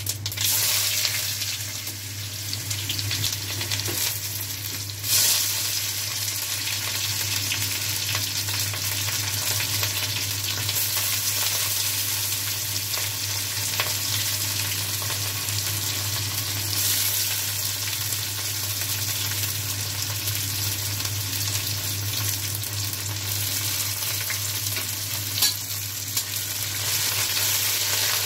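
Sliced onions frying in hot oil in a steel kadai, with a steady sizzle, stirred now and then with a metal spatula.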